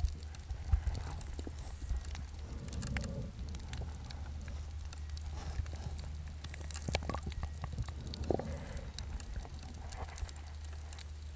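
Muffled underwater sound picked up by a camera sealed in a DicaPac soft waterproof pouch: a steady low rumble with scattered clicks and knocks, the strongest about 7 and 8 seconds in.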